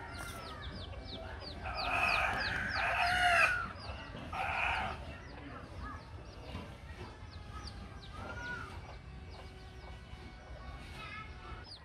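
A rooster crowing, one long call about two seconds in, followed by a shorter chicken call a second later and another faint one near the end, with faint high chirping throughout.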